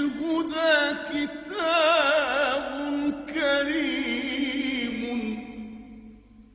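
A solo male voice singing an Arabic nasheed, drawing out a long melismatic vowel with wavering ornaments, then fading out near the end.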